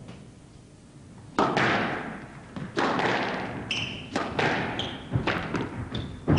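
Squash rally: the ball is struck by rackets and slams off the court walls in a series of sharp hits, each ringing on in a large hall, starting about a second and a half in. Short shoe squeaks on the court floor come between the later hits.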